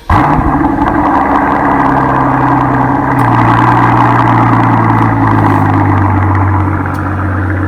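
Mercedes-AMG S65's twin-turbo V12 starting up: it comes in suddenly with a brief flare of revs, then settles into a steady idle whose pitch drops slightly in two steps.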